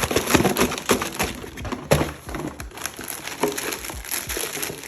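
Plastic snack packaging crinkling and crackling as it is handled, with a dense run of sharp crackles, loudest about two seconds in.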